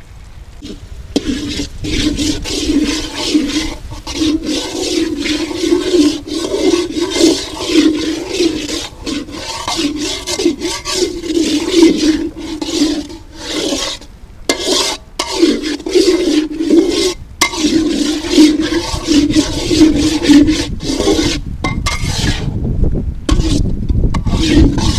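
Steel spatula scraping and stirring sea urchin meat and onion masala around a black iron kadai: repeated rough scraping strokes with brief pauses between them.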